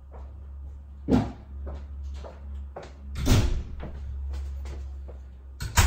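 Cupboard doors and objects being knocked about out of view, with two loud thuds about one and three seconds in, several lighter knocks and a cluster of clatter near the end, over a low steady hum.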